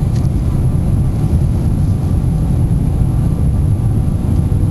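Steady low rumble inside the cabin of a jet airliner on final approach to land: engine and airflow noise carried through the fuselage.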